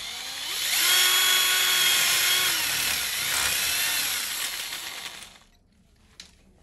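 Power drill boring a screw hole into a wall: the motor spins up to a steady whine, eases off briefly, speeds up again, then winds down and stops about five seconds in.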